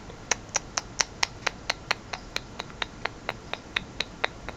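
An even series of small, sharp clicks, about four a second, some eighteen in all, stopping shortly before the end.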